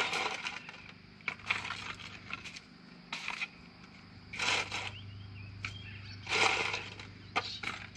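Metal tongs clinking and scraping in a metal bowl while lifting chips into a cardboard box, in short bursts about a second apart.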